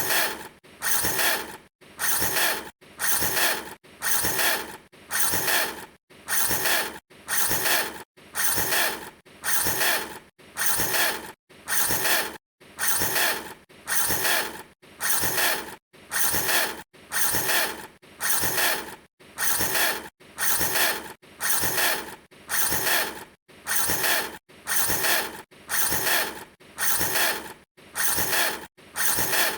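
A harsh mechanical rasp that repeats in even bursts about once a second, with short silences between.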